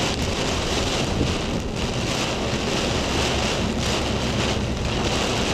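Hard, wind-driven rain from a hurricane pouring steadily, with gusts buffeting the microphone.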